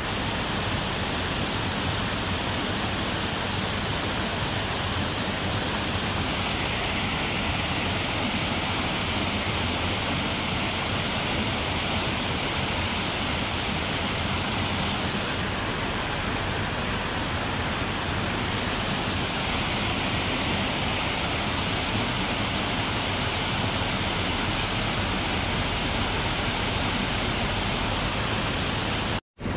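Steady rush of water pouring over a low concrete weir across a mountain stream.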